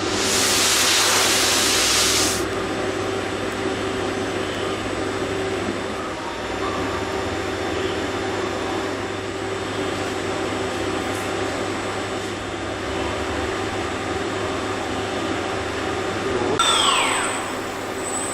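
Machinery of a robotic welding and assembly cell running with a steady hum. A loud hiss lasts about two seconds at the start, and a brief falling whine comes near the end.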